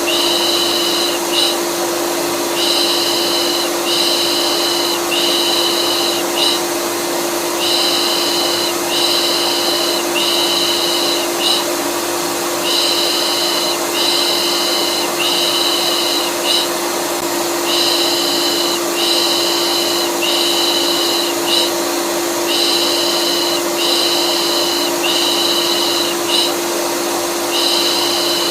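Vacuum cleaner motor running steadily, with a rhythmic soothing shush ('pış pış') laid over it: three long shushes and a short one, repeating about every five seconds. It is a steady noise loop meant to calm a colicky baby to sleep.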